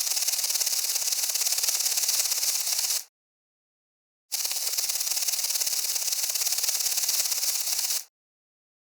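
Beetle ambience sound effect: a dense, rapid rasping clicking, mostly high-pitched, in two bursts of about four seconds each that start and stop abruptly with silence between.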